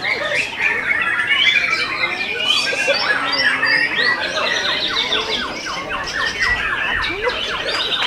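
White-rumped shamas (murai batu) singing loudly over one another: a dense, overlapping chorus of whistles, glides and harsh chattering notes, with a fast run of about eight repeated notes a second past the middle.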